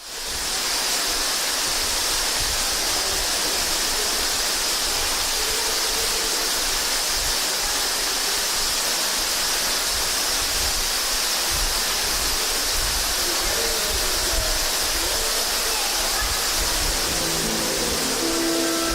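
Ruby Falls, an underground cave waterfall, pouring with a steady, even rush of water that starts abruptly at a cut.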